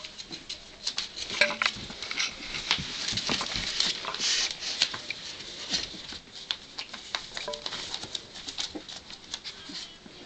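A litter of four-week-old bull terrier puppies play-fighting, their paws scrabbling and pattering on fleece bedding in a constant run of small irregular scuffs and clicks, with a few short puppy squeaks.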